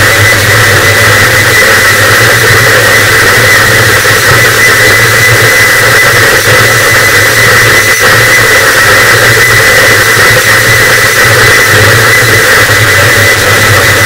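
Harsh noise wall: a dense, distorted wall of static at near full volume that does not change, with a steady high whine and a low hum running through it.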